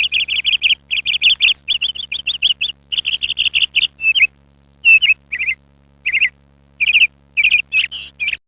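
A bird chirping in quick runs of short high notes, several a second, broken by a few short pauses, over a faint steady low hum.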